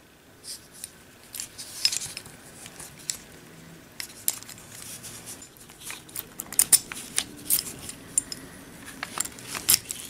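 Small metal parts of a garage door quick-release lock being handled: the barrel lock, its key and steel cable clicking and clinking against each other and the lock housing. The light clicks come in scattered ones and twos, more often in the last few seconds.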